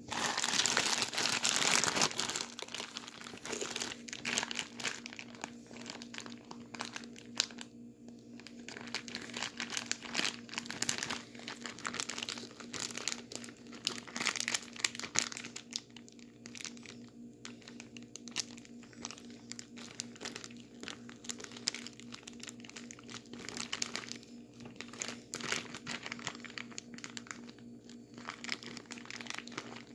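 Plastic bag full of ice and salt being shaken and squeezed to freeze a drink into slush: continuous plastic crinkling and ice crunching, most vigorous in the first couple of seconds. A steady low hum sits underneath.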